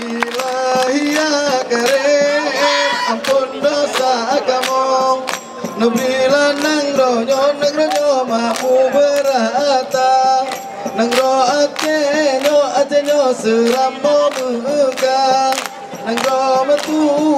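Music for the Acehnese Ratoh Jaroe kneeling dance: a sung melody carried over sharp, rhythmic percussion strikes.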